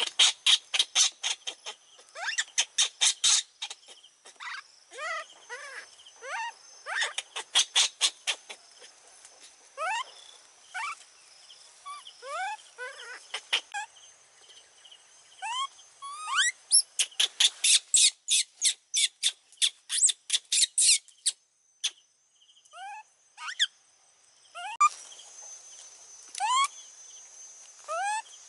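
Animal calls: many short rising squeaks, some in quick series, and fast clicking trills, over a steady high insect drone.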